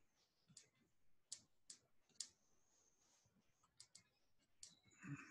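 Faint, scattered clicks of a stylus tapping a tablet's writing surface while equations are handwritten, about seven sharp taps at uneven intervals.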